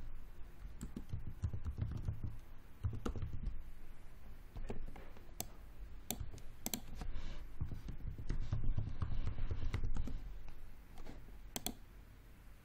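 Typing on a computer keyboard, with irregular keystrokes and clicks, while login details are entered.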